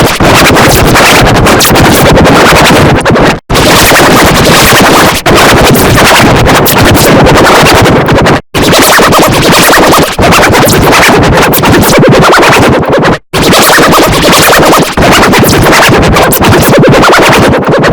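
Harsh, heavily distorted and clipped audio collage, loud and noisy like electronic music, with sudden dropouts to silence about every five seconds.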